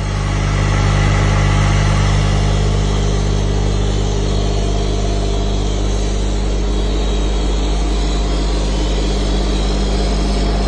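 Becker U4 630 SA-K oil-lubricated rotary vane vacuum pump and its electric drive motor running: a steady low hum under a broad rush of noise, rising to full level within about the first second and then holding.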